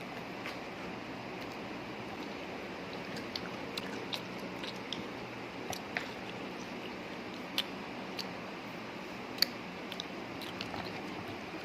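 Someone eating longan fruit: quiet chewing with scattered small clicks and cracks over a steady background hiss. The sharpest click comes about nine seconds in.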